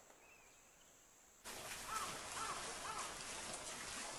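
Faint outdoor nature ambience. A soft hiss steps up about a second and a half in, and over it an animal gives a short call three times, about two a second.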